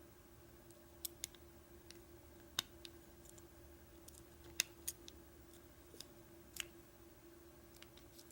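Faint, sharp metallic clicks and ticks, a few seconds apart, of a lock pick and tension wrench working the pins inside an American Lock 1100 padlock, under a steady low hum.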